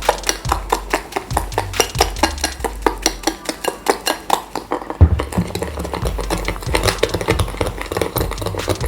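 A spoon beating egg and sugar in a bowl, clicking against the bowl's side in a quick, steady rhythm of about four to five strokes a second.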